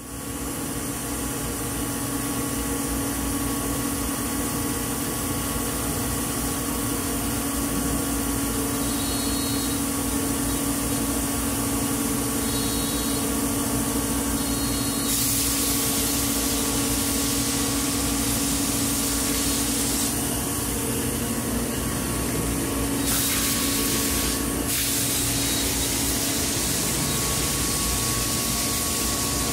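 Weeke Optimat Vantech 480 CNC router running: a steady machine hum with several held tones under a constant hiss. The hiss grows louder for about five seconds midway, and again briefly a little later.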